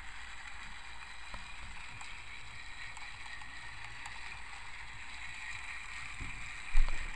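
Battery-powered TrackMaster toy train engine running around plastic track, its small motor and gears whirring steadily as it pulls its cars. A single short thump near the end.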